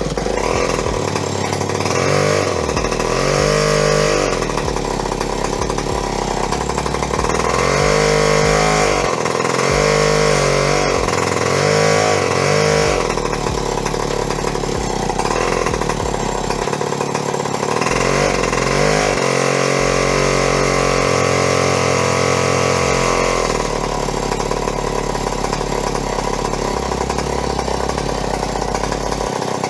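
Two-stroke chainsaw fitted with a shortened bar, running and being revved up and down again and again.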